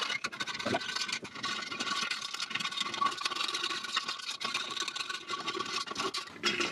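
Screwdriver turning long steel bolts out of a chainsaw's exhaust muffler, a continuous run of rapid metal clicking and grating as the threads unwind.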